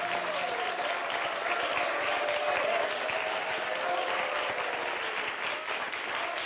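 Studio audience and contestants applauding, a steady, dense clapping that keeps on without a break.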